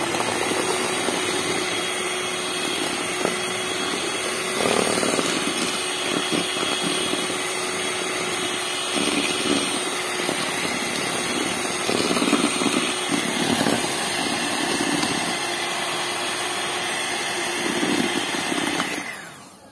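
Kenwood electric hand mixer running steadily with a constant motor whine, its twin beaters whisking egg whites and sugar in a plastic bowl, louder in stretches now and then. The motor stops near the end.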